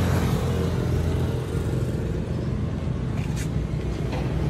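Kubota L5018VN tractor's diesel engine idling steadily.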